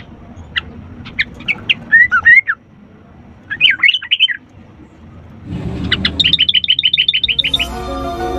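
Sooty-headed bulbul singing: several short, quickly rising and falling whistled phrases. Near the end comes a fast run of about a dozen clipped notes, and music starts under it at the very end.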